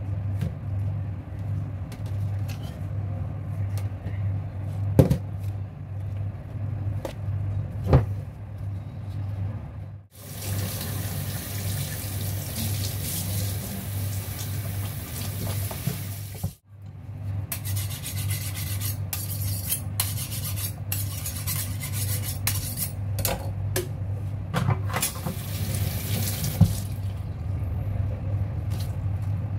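Tap water running into a stainless-steel kitchen sink as raw lung is rinsed under it, in two long stretches from about a third of the way in. Earlier come two sharp knocks of a plastic colander against the sink, and a steady low hum runs underneath throughout.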